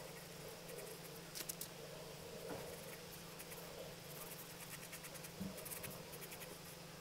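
Pencil scratching on sketchbook paper in short, quick strokes, faint, with a couple of louder taps and a steady low hum underneath.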